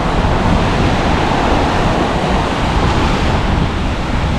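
Steady rush of ocean surf breaking on the beach, with wind buffeting the microphone.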